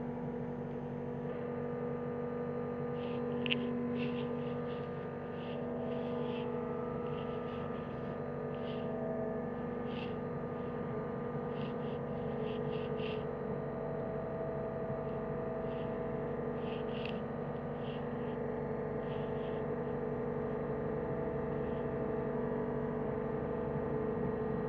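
John Deere 325G compact track loader's diesel engine running at a steady speed, with scattered short high ticks over it.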